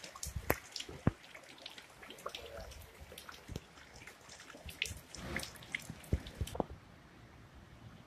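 Water dripping irregularly from rain-soaked trees after a storm, in many short ticks, with a few dull knocks among them. The drips stop about six and a half seconds in.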